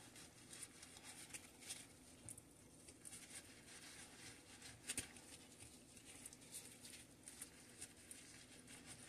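Near silence with faint, scattered soft clicks and squishes from gloved hands pressing garlic butter between the slices of a loaf of bread.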